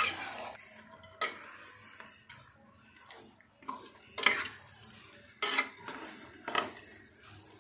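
Metal spatula scraping and clacking against a nonstick wok while stirring chicken pieces in spice paste, in uneven strokes about once a second.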